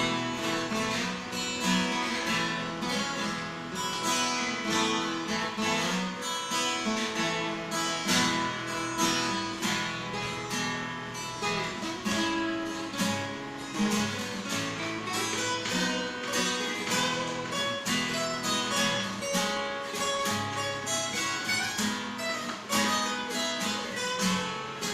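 Acoustic guitar playing an instrumental interlude, strummed and picked, with no singing.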